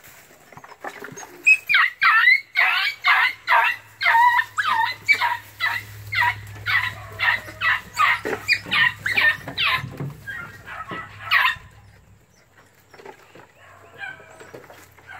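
Beagle puppies yelping on a rabbit chase: a long string of short, high-pitched cries, about two or three a second, that stops about eleven seconds in.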